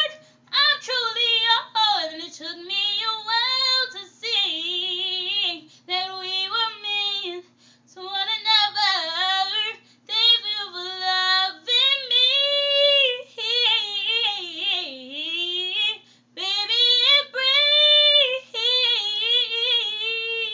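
A young woman singing an R&B ballad a cappella, unaccompanied, in phrases of long held and bending notes with vocal runs, broken by short breaths.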